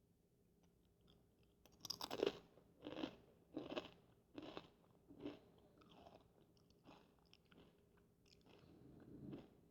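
Fritos corn chips crunched close to the microphone: after a quiet start, a loud bite about two seconds in, then a run of crunching chews roughly one every 0.7 seconds, easing into softer chewing.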